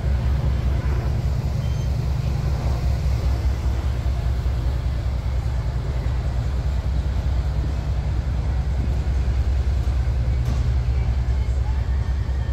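Seadog tour speedboat's engines running with a steady low rumble as it pulls away from the dock, its propulsion churning the water at the stern.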